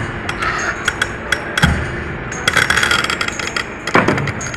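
Hydraulic concrete cruncher's jaws crushing a reinforced concrete wall edge: a rapid run of sharp cracks and snaps as the concrete breaks up, with heavier cracks about a second and a half in and again about four seconds in, over a steady low hum.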